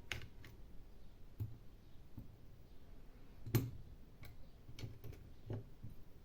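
Irregular light clicks and taps from small tools and parts being handled while a tablet is taken apart, with one sharper click about three and a half seconds in.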